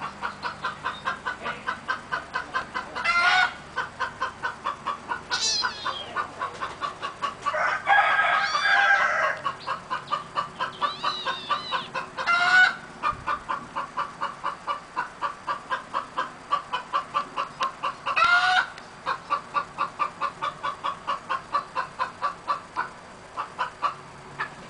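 Chickens clucking in a steady run of about four clucks a second, with louder single calls about three, twelve and eighteen seconds in and a longer, fuller call around eight to nine seconds in.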